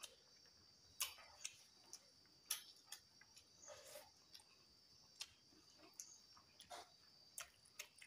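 Faint eating sounds: scattered small clicks and wet smacks of people chewing and working rice and egg with their fingers, coming irregularly about once a second.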